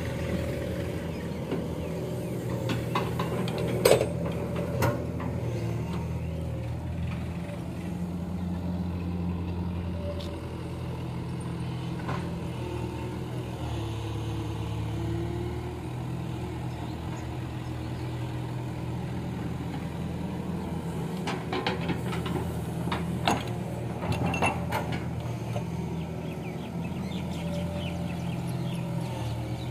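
Diesel engines idling steadily: the 50 hp Sonalika tractor with the excavator working beside it. A few sharp clunks and rattles come about four seconds in and again around three-quarters through, as soil is dropped into the steel trolley.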